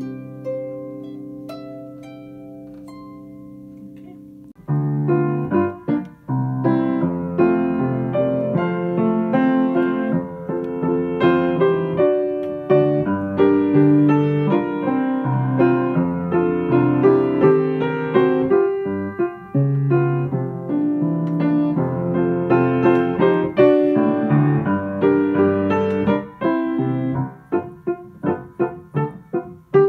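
Background piano music: a held chord fades away over the first few seconds, then a steady run of piano notes plays, thinning to single notes near the end.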